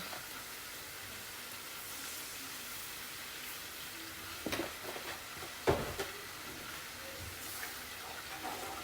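Butter, garlic and flour sizzling steadily in a pan as a roux is cooked for a white sauce, with two knocks a little past halfway.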